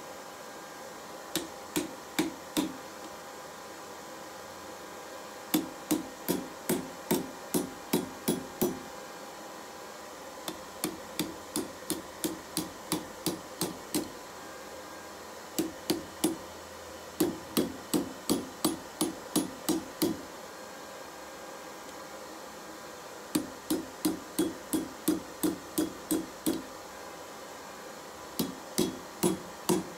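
Hand hammer striking red-hot steel on an anvil: blacksmith forging a pair of knife tongs. The blows come in runs of several strokes, about three a second, with short pauses between runs.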